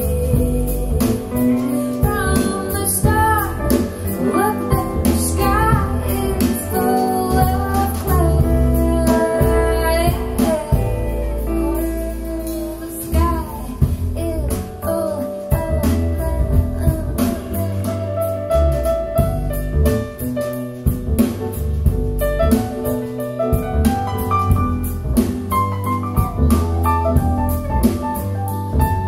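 A song with a singing voice, instrumental accompaniment and a steady beat, played back through CSS Audio Torii bookshelf speakers and picked up by stationary microphones about eight feet away in the room.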